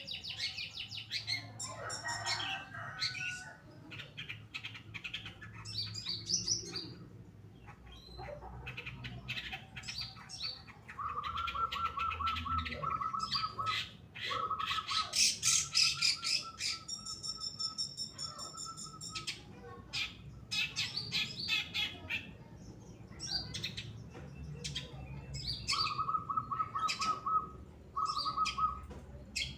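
Long-tailed shrike singing a fast, varied song of sharp chirps and twittering phrases, with rows of rapid repeated notes in the middle and near the end.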